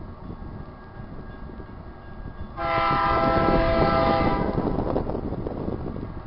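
GE C44-9W diesel locomotive's air horn sounding one long blast of about two seconds, several notes together, starting about two and a half seconds in: the train's warning as it approaches the grade crossing. A low rumble of wind and the approaching train runs underneath.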